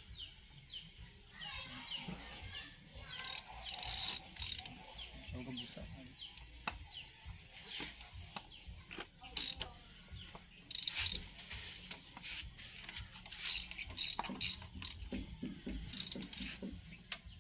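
Hand socket ratchet wrench clicking in irregular runs as it turns bolts on a John Deere tractor's rear PTO housing, with occasional metal taps from the tools.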